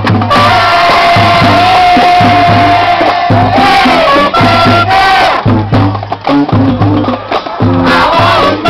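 High school band playing loudly, a repeating bass line under a long held higher note that bends near its end, with crowd voices shouting.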